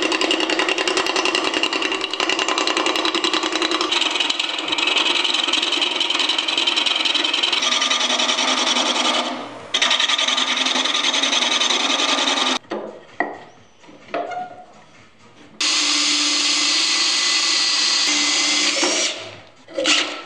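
Wood lathe spinning a walnut spoon blank while a hand-held turning tool cuts it: a dense, steady rush of cutting noise for about twelve seconds, breaking off briefly once. After a short lull, a cordless drill runs for a few seconds with a steady whine as it bores into the walnut, then gives one short burst near the end.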